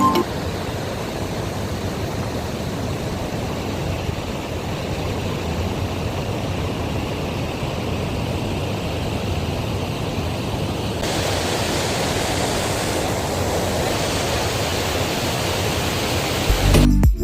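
Steady rushing noise with no distinct events, brightening in the upper range about eleven seconds in.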